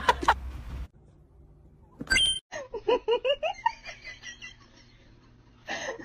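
A brief ringing chime, then a run of quick, short laughing bursts that rise and fall in pitch for about a second and a half.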